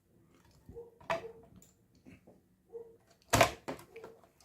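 A few clicks and knocks of hands handling the desktop computer's case and parts during reassembly, the loudest knock about three and a half seconds in.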